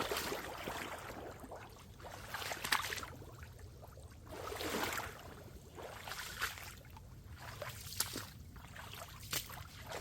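Footsteps wading and sloshing through shallow swamp water, a swishing surge about every two seconds, with small clicks and snaps in between.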